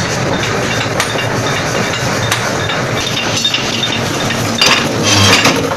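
Forge-shop machinery running with a steady loud din and scattered metallic clinks, then a louder clatter with a low thump about five seconds in, as a forging press or power hammer works hot metal.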